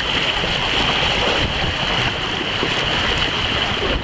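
Water of a lazy river's current rushing steadily past inflatable tubes.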